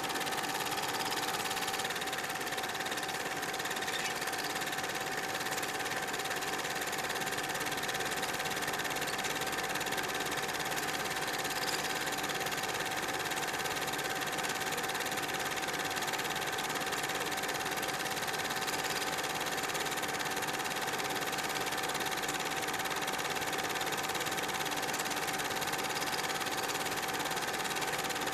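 Super 8 film projector running, a steady mechanical whir with a constant hum.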